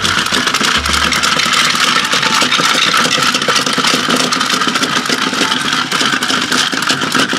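Several battery-powered Chubby Puppies toy dogs running at once, their small motors and gears whirring with a rapid clicking rattle as the plastic toys waddle about.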